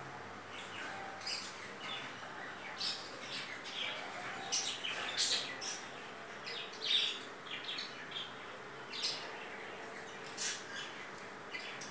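Small birds chirping in short, irregular high calls over a steady hiss.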